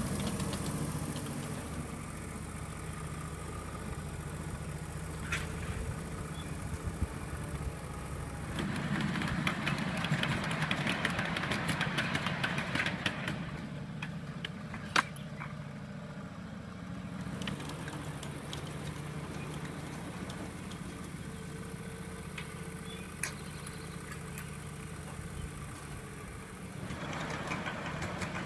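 A small engine running steadily at a low idle-like pace, with the rolling noise of 1.5-inch-scale model railroad cars on the track swelling about a third of the way in and again near the end. A single sharp click comes about halfway.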